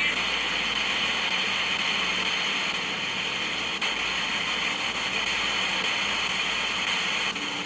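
Tecsun PL-310ET portable radio's speaker giving a steady FM static hiss while it steps through stored FM presets without locking onto a clear station.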